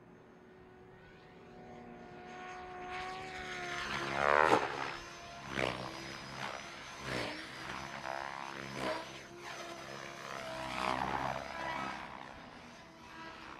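Electric Mikado LOGO 700 XXTREME radio-controlled helicopter flying aerobatics: the rotor and motor whine grows louder as it comes in close and peaks about four seconds in, with the pitch sweeping. After that the rotor noise rises and falls in a run of loud pulses as it manoeuvres, swelling once more near the end.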